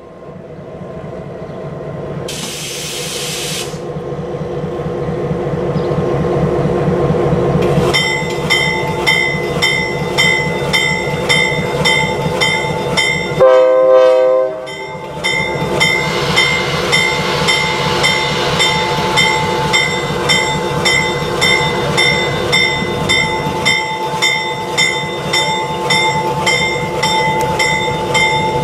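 Diesel locomotive of the Cape Cod Central dinner train running at the platform, its engine growing louder over the first several seconds, with a short hiss of air about two seconds in. About eight seconds in its bell starts ringing steadily at about two strokes a second, and it keeps ringing through a single short horn blast about halfway through, as the train readies to depart.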